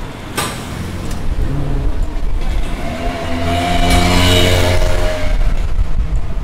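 A motor vehicle passes close by: its engine hum and road noise build to their loudest about four seconds in, then fade as it moves away. There is a short sharp click about half a second in.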